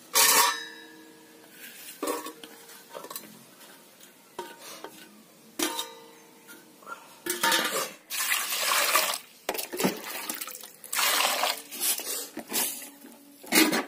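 Steel plate and snail shells knocking into a stainless steel pot, the pot ringing after each of several knocks. Then, about halfway through, water is poured into the pot twice in long splashing rushes.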